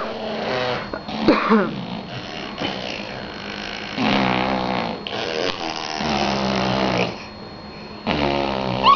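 A person making funny non-speech vocal noises: short squeaky gliding sounds in the first couple of seconds, then long, low, drawn-out voiced sounds lasting a second or more each.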